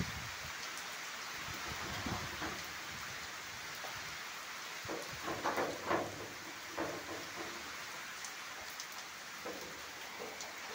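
Rain falling steadily, with a few louder irregular splashes or knocks about halfway through.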